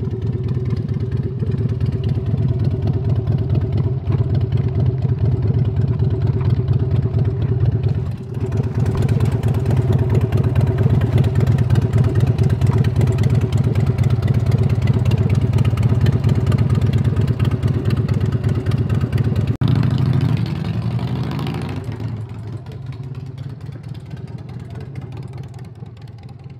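Harley-Davidson Road King custom bagger's V-twin engine running loudly, rising in pitch about twenty seconds in as it accelerates, then fading away.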